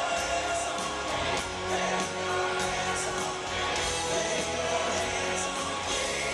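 Live rock band playing amplified guitars and drums with a singer, heard from the audience in a large arena.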